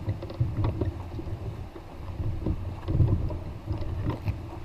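Irregular low thumps and rumble of a canoe being carried overhead along a portage trail: footfalls and the hull jostling on the carrier's shoulders, picked up by a camera riding on the canoe, with some wind on the microphone.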